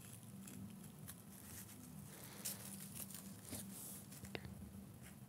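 Faint rustling and scattered light clicks from hands handling and marking a doll's wig cap, over a low steady hum.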